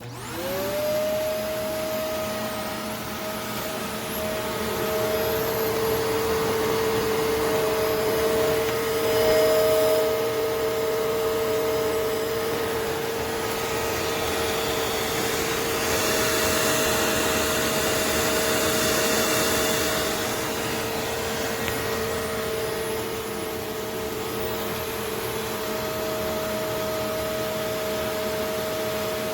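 Upright vacuum cleaner switched on, its motor spinning up within a second, then running steadily with a whine and airflow hiss. It is switched off at the end, the whine falling in pitch as the motor winds down.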